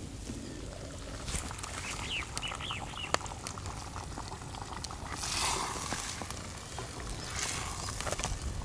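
Steaming chicken feet curry in a clay pot being stirred and scraped with a spatula, with a wet bubbling and a sharp knock about three seconds in. A few bird chirps come in around two seconds in.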